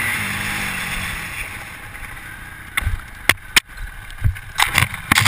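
Suzuki RM-Z250 four-stroke single-cylinder dirt bike engine at low revs, dying away over the first couple of seconds. From about three seconds in, a run of sharp knocks and clicks close to the microphone.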